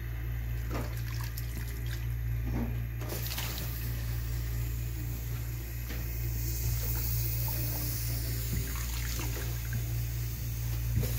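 Pot of water with chopped spinach heating on a stove, the water bubbling with a continuous watery hiss over a steady low hum, and a few faint clicks.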